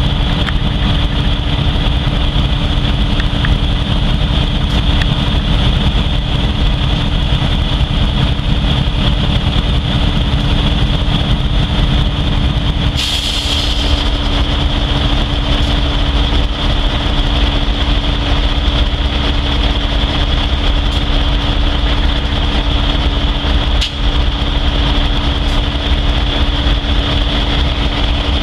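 Diesel-electric freight locomotive idling steadily while stopped, with a short burst of hiss about halfway through.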